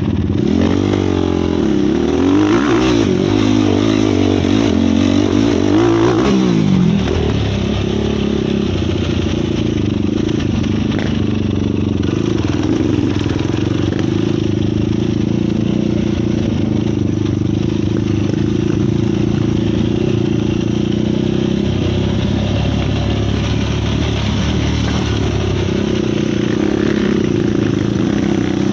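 Sport quad engines, single-cylinder 450 four-strokes, revving up and down repeatedly for the first several seconds, then running at a steadier pitch for the rest.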